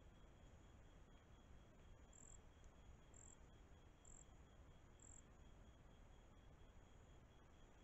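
Faint night insects: a steady high-pitched pulsing trill, with four short, higher chirps about a second apart near the middle, over low hiss.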